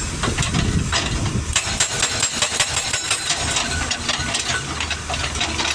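Hydraulic rock breaker on a Case CX220C excavator hammering rapidly against rock, with the excavator's diesel engine running underneath. The blows thin out over the last second or two.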